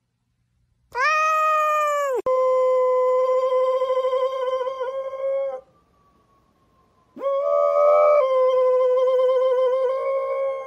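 Golden retriever howling: one long, steady howl starting about a second in, with a brief break early on, then a pause and a second long howl from about seven seconds in.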